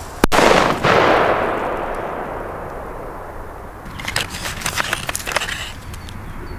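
A single loud firecracker bang about a quarter second in, its report echoing and dying away over about two seconds. From about four seconds in, short clicks and rustling as a cardboard box of firecrackers is handled.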